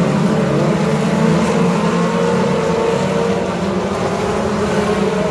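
Engines of several ministock dirt-track race cars running together on the track, a steady, unbroken blend of engine noise.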